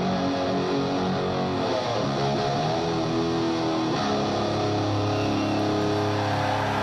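Live rock music: a slide guitar plays held notes that glide and bend in pitch over a bass guitar.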